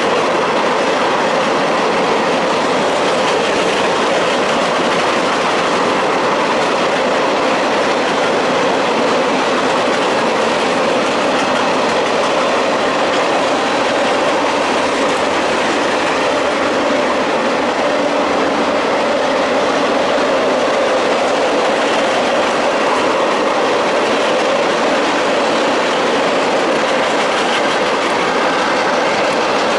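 Cars of a mixed freight train rolling past: a steady, loud, unbroken noise of steel wheels running on the rails.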